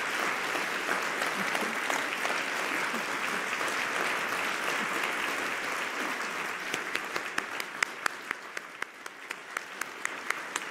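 Audience applauding. The dense clapping thins out after about six seconds into scattered individual claps.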